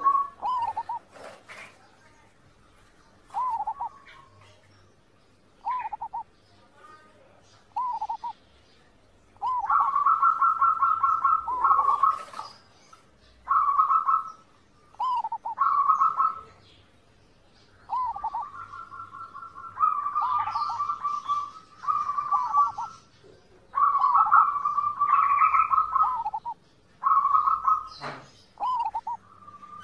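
Zebra dove (perkutut) singing. It alternates short single coos with longer rapid, stuttering trilled phrases at a steady pitch, each separated by a pause of a second or two. A few sharp clicks fall between the phrases.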